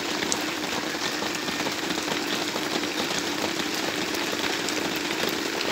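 Steady rain falling, an even hiss with scattered drop ticks, over a steady low hum.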